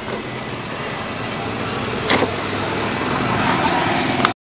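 Steady noise of a running car heard inside its cabin, growing slightly louder, with a sharp click about two seconds in and another just before the sound cuts off abruptly near the end.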